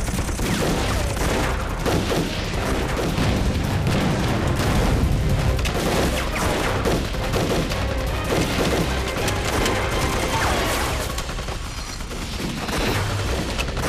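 Continuous, dense gunfire from many rifles and pistols in a street firefight, shots overlapping throughout.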